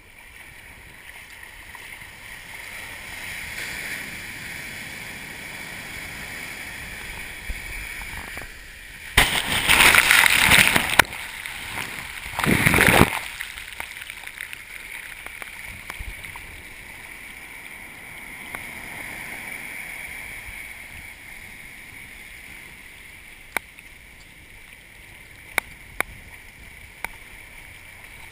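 Ocean surf washing up a sandy beach and swirling around the microphone at the water's edge. About nine seconds in a wave breaks over it with about two seconds of loud rushing water, and a shorter loud splash follows a couple of seconds later. A few faint clicks near the end.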